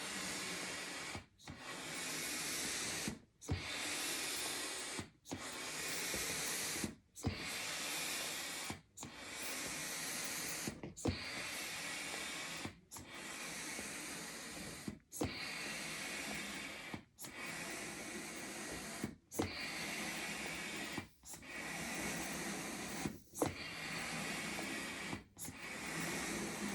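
Double-action hand pump inflating a 12-inch latex balloon: a steady rush of air, breaking off briefly about every two seconds as the pump handle turns at the end of each stroke, with a light click at each break.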